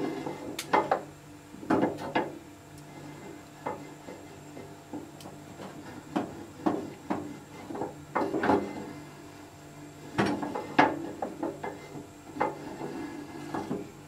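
Irregular wooden knocks and clatters as a wooden frame-saw part is moved and turned over a gas stove burner, bumping against the metal pan support, over a steady low hum.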